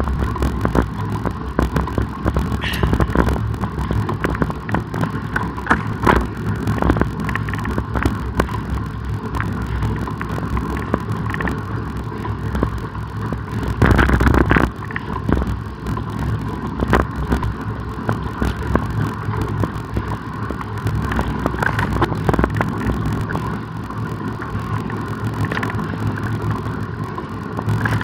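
Road bicycle in motion: a steady rush of tyre and wind noise with frequent small rattles and knocks, and a louder rush about halfway through.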